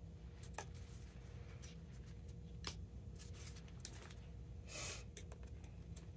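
Faint scattered clicks and ticks of a plastic tennis-racket grommet strip being handled and worked with an awl, with one short scrape about five seconds in.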